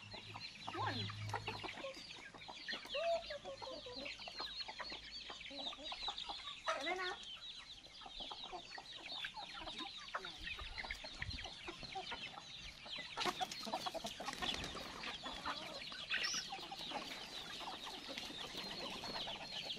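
A flock of free-range chickens feeding: hens clucking and young chickens peeping in many short, overlapping high calls, with a brief burst of noise about two-thirds through.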